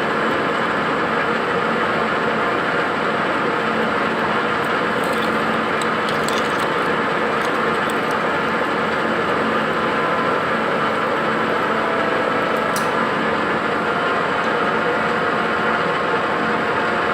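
Metal lathe running steadily, turning a crankshaft while a 14.5 mm drill is fed to full depth into the broken-bolt hole in its end, with a few light clicks.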